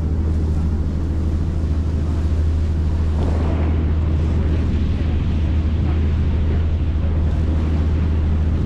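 Tour boat's engine droning steadily, a constant low hum, with wind and water noise over the microphone.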